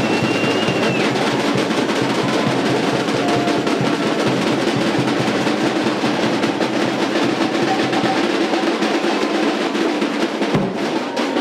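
Drums playing a dense, continuous beat.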